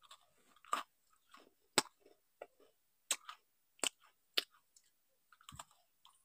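A person biting and chewing crisp biscuits: about six sharp crunches with softer chewing between them.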